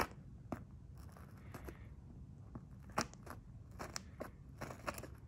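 A small craft knife's blade piercing and cutting a headrest hole in a seat cover: a series of small, irregular clicks and snips with a little scraping, the sharpest click about three seconds in.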